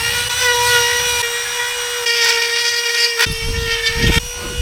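Power drill running at a steady high speed, enlarging a tight hole in a wooden door for a lock's cable. About three seconds in, rough knocking and grinding come in as the bit bites into wood swollen from moisture.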